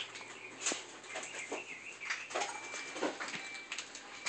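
Scattered clicks, knocks and rustles of objects being handled and shifted, with a few brief high squeaks.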